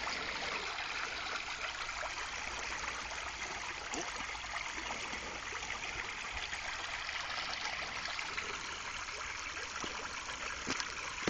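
Shallow rocky stream rushing and trickling steadily over stones, with a few faint clicks.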